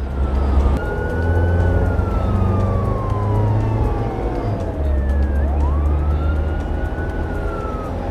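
Police car sound effect: an engine running steadily under a slow siren wail, whose pitch slides down for about four seconds and then sweeps back up.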